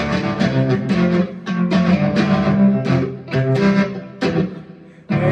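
Music: a guitar-led instrumental passage of a country song, plucked and strummed notes between sung lines, dipping briefly shortly before the end.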